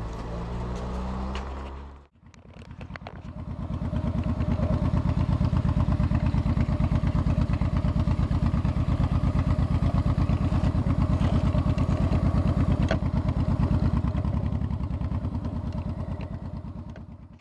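Motorcycle engine running with a fast, even exhaust beat. After a short break it builds over a couple of seconds, holds steady, then fades away near the end.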